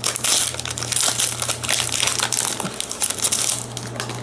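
Foil Pokémon booster pack wrapper crinkling in the hands as a stiff, hard-to-open pack is worked open; the crinkling eases near the end.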